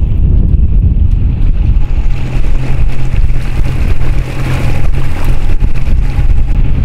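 Hurricane Sundeck deck boat under way on its Yamaha 115 four-stroke outboard, with wind buffeting the microphone and water rushing past the hull. A steady low engine hum comes through about two seconds in.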